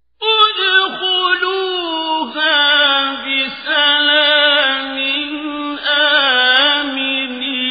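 A male Qur'an reciter chanting in a melodic style. His voice enters a moment in and holds long, wavering, ornamented notes, with brief breaks between phrases.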